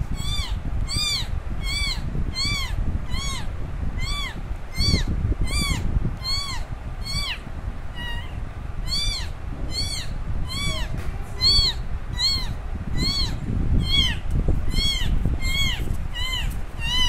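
Very young kitten meowing very loudly and over and over, about two short high cries a second, each rising then falling in pitch: a kitten crying for its absent mother.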